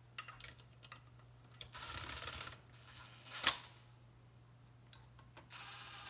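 Metal parts being handled as an electric motor is fitted onto an EverClean's cast housing: scattered light clicks and short scrapes, with one sharp clack about three and a half seconds in. A steady low hum runs underneath.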